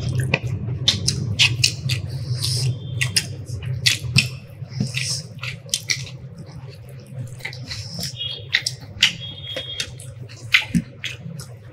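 Close-miked eating sounds: many short wet clicks and smacks as rice and pea curry are mixed by hand on a plate and chewed, over a steady low hum.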